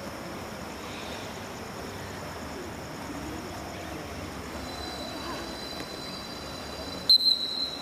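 Faint outdoor background with distant voices, then about seven seconds in a short, loud, high-pitched referee's whistle blast: the coach's start signal for a reaction drill.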